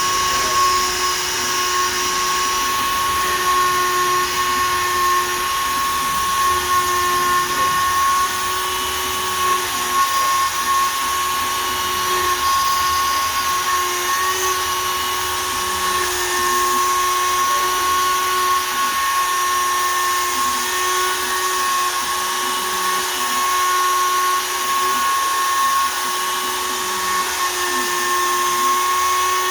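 Shapeoko 3 XL CNC router running a 1/8 in two-flute downcut spiral bit at 20,000 rpm and cutting poplar: a steady high whine with the hiss of the bit in the wood, slight wavers in level as the cut moves.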